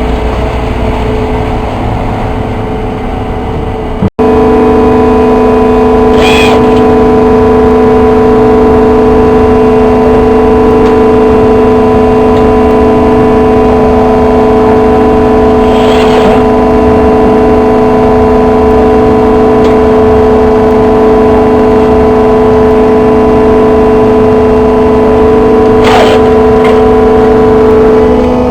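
Semi-automatic baler's motor running with a loud, steady hum in two even tones, which starts about four seconds in after a brief break. A short sharp click comes three times, about ten seconds apart.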